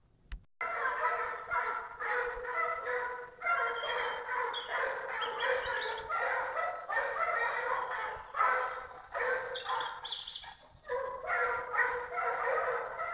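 A pack of hunting hounds baying together in a continuous overlapping chorus, the pack in full cry on a wild boar's scent as it flushes the boar from its bed. The chorus starts about half a second in and thins briefly about two-thirds of the way through before swelling again.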